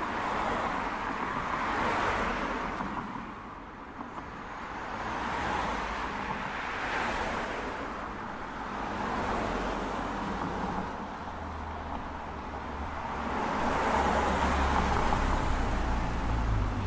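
Road traffic: several cars passing one after another, each swelling and fading away. A low rumble grows stronger in the second half.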